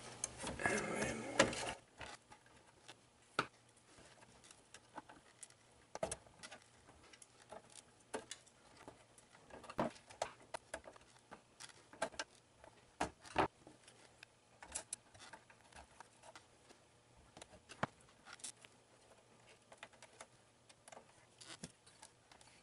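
Scattered light clicks, taps and knocks of parts being handled and seated inside a Sun Ultra 5's metal computer case as a mainboard, its cables and the CPU module are fitted, with louder rustling handling noise in the first two seconds. A faint steady hum runs underneath.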